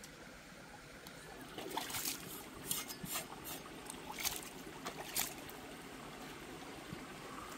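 Water splashing and short wet slaps, about a dozen in a cluster over a few seconds, as a large fish is handled on wet rock at the water's edge, over the steady trickle of a shallow stream.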